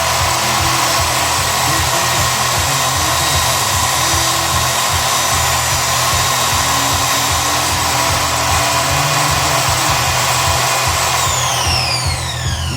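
Homemade table saw running steadily with a constant whine, then switched off about eleven seconds in, its pitch falling as the blade spins down. Music plays faintly underneath.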